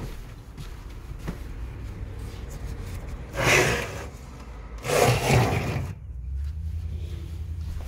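Two loud rubbing, rustling noises, each about a second long and a second apart, like the phone or clothing brushing against a surface. Faint scattered clicks sound throughout, and a low steady hum sets in near the end.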